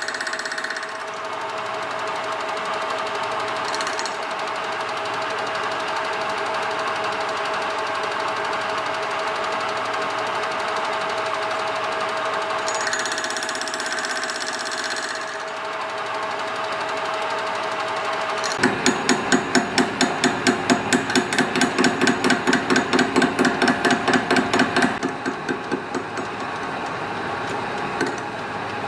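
Metal lathe running under power with a steady whine. About two-thirds of the way through, a rapid, regular knocking sets in, about three knocks a second for some six seconds, then the lathe goes back to running steadily.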